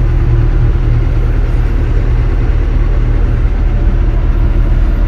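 Kobelco SK200-10 excavator's Hino four-cylinder diesel engine running steadily, heard from inside the operator's cab.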